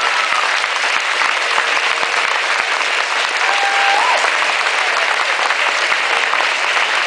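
Large crowd applauding and cheering, a dense, steady clapping.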